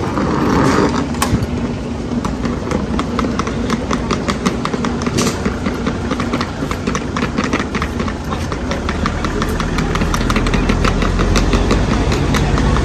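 Bozankaya tram standing at the stop with its equipment humming steadily, while a rapid, even ticking runs through most of the stretch. A low rumble grows near the end.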